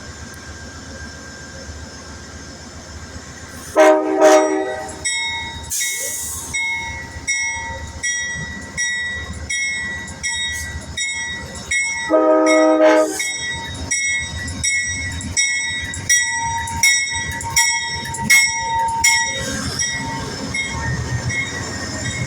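Amtrak passenger locomotive's horn sounding two blasts of about a second each, some eight seconds apart. Between and after them a bell-like strike rings steadily, about every 0.7 s, over the rumble of the train.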